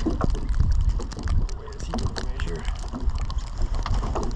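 Gusting low rumble of wind on the microphone, with scattered small knocks and clicks and a faint voice about two seconds in.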